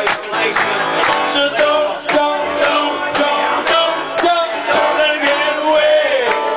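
Live bar music: a keyboard played with a man singing, loud and steady with a regular beat.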